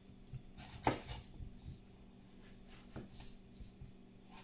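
Kitchen knife slicing a cucumber on a wooden cutting board: a few faint knocks of the blade meeting the board, the clearest about a second in.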